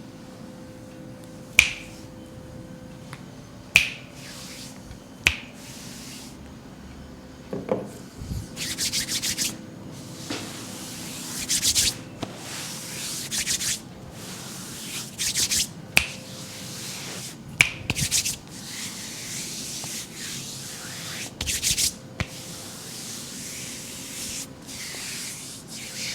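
A few single sharp finger snaps, then repeated short bursts of hands rubbing skin during a back massage.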